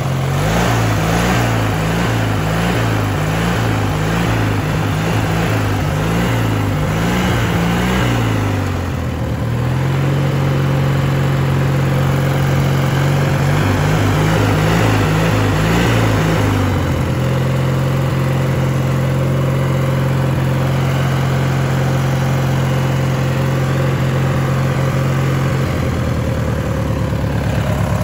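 Riding lawn mower's small engine running. Its speed wavers up and down about one and a half times a second for the first several seconds and again briefly midway, and otherwise holds steady.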